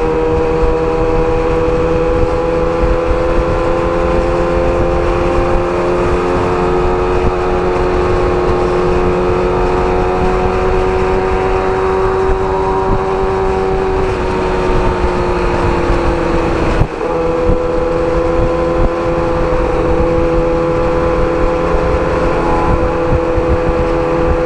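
Kawasaki Ninja ZX-6R inline-four engine running at cruising revs, with wind noise over the microphone. The engine's pitch climbs slowly as the bike gains speed, then eases back. There is a brief dip about 17 seconds in, after which it runs steady again.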